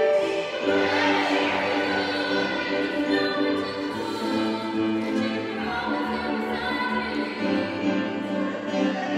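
Recorded dance music: a song with several voices singing together in sustained notes over orchestral backing and a steady bass line.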